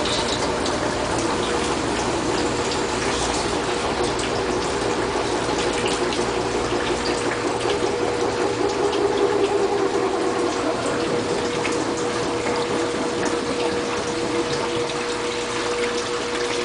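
Bosch washing machine running with water rushing through it, over a steady even hum from its pump or valve.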